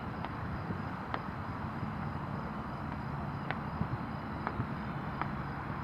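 Distant small fireworks going off as a handful of faint, scattered pops over a steady hum of distant highway traffic.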